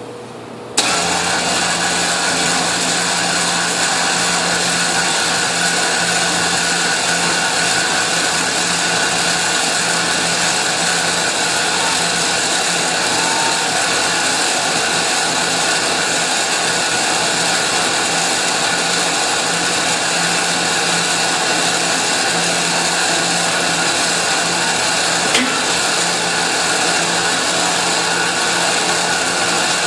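A small motor-driven machine starts abruptly about a second in and runs steadily at a constant speed, with one small click later on.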